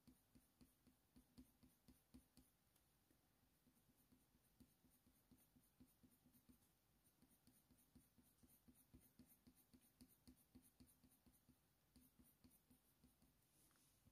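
Very faint scratching of a Faber-Castell Polychromos coloured pencil making short fur strokes on hot-press watercolour paper, about three or four strokes a second.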